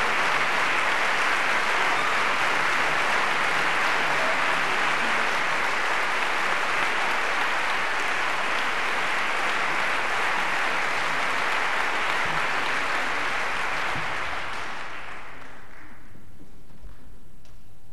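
A theatre audience applauding, a dense, steady clapping that dies away about fifteen seconds in.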